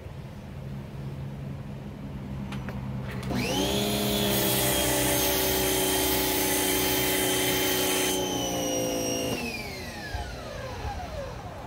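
Giraffe Tools Grand Falls electric pressure washer's motor and pump start with a quickly rising whine about three seconds in as the trigger is pulled, then run at a steady pitch. For about four seconds the foam cannon sprays soap foam with a loud hiss. After the trigger is released the motor winds down, its whine falling steadily in pitch.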